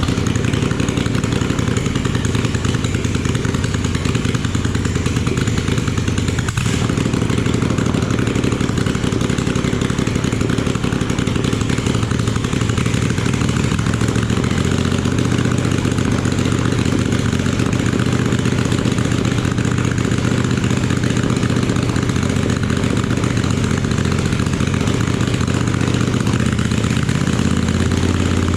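Kohler CH18 air-cooled V-twin small engine running steadily on its first run after being rebuilt, having just started; its low note gets stronger near the end.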